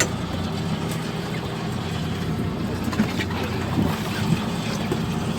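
A fishing boat's engine running steadily with a low drone, with a few faint knocks over it.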